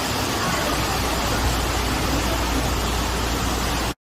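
Steady hiss of heavy rain mixed with road traffic, cutting off suddenly near the end.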